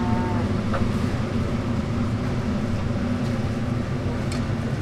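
A steady low hum and rumble, like machinery or a burner running, with a light click about three-quarters of a second in and a sharper click near the end.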